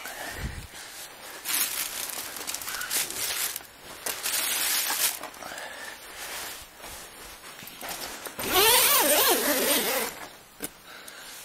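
Tent zipper being pulled in three strokes, the longest and loudest near the end, with rustling of fabric in between.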